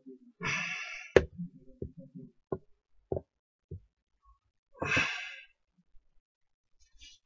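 A man gives two long breathy exhales, one under a second in and one about five seconds in, with low murmured vocal sounds between them. Several sharp knocks of wooden toys being handled and set down on the table come between the exhales; the first, just after the first exhale, is the loudest.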